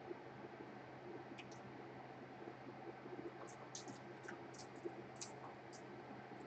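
Faint, scattered light clicks and ticks of small parts and tools being handled during a laptop repair, over a steady low room hum, with the clicks bunched in the second half.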